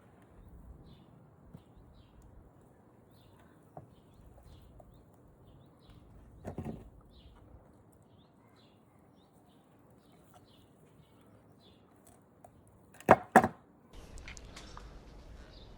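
Faint bird chirping in the background, with a short rustle about halfway through and two sharp knocks in quick succession near the end.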